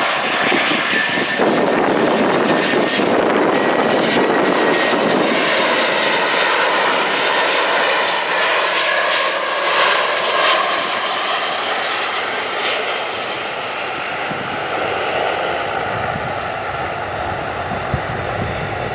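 Airbus A319 jet airliner on low final approach, gear down, passing close by: a steady jet engine roar with a whine that slides down in pitch about halfway through, then slowly fading as it moves away.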